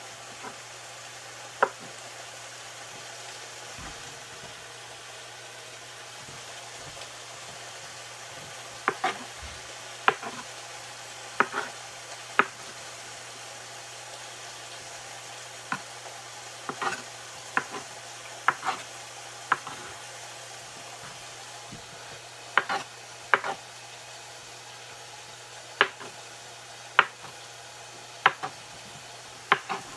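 Chef's knife cutting a block of cheese into chunks on a cutting board. The blade hits the board in sharp, irregular taps, often a second or more apart and sometimes in quick pairs, over a faint steady low hum.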